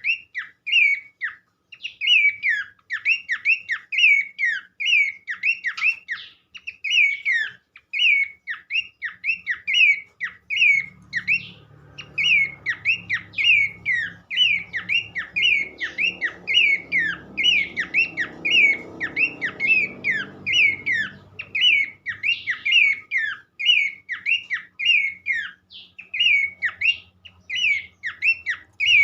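Pelanduk semak babbler calling in a fast, unbroken run of short, sharp, high chattering notes, several a second. A faint low rumble sits under it in the middle of the run.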